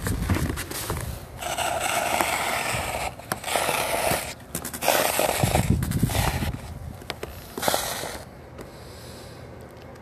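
A hand scraping through fresh snow, in several gritty bursts of about a second each, with low rumbling handling noise underneath. It goes quiet over the last two seconds.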